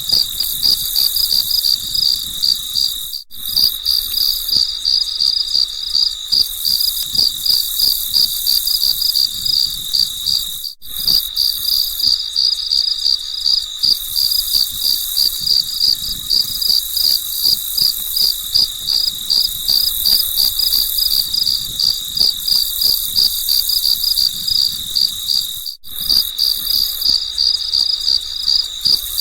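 Crickets chirping in a steady, even pulse of high-pitched chirps, with a faint hiss above. The sound drops out for an instant three times.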